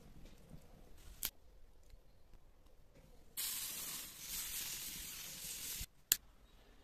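A steady hiss lasting about two and a half seconds that starts and stops abruptly, with a sharp click a couple of seconds before it and another just after it.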